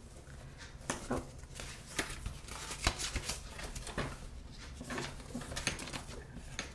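Ring-bound paper flashcards being flipped through by hand: a run of soft papery flicks and rustles, busiest in the middle.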